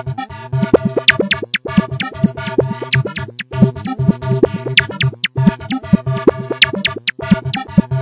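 Electronic ringtone tune with a beat: a short synthesizer phrase that loops, breaking off briefly and starting over about every two seconds.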